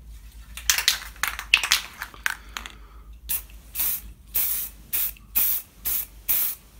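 Aerosol can of black matte spray paint: a couple of seconds of irregular clicks, then short hissing spray passes, about two a second.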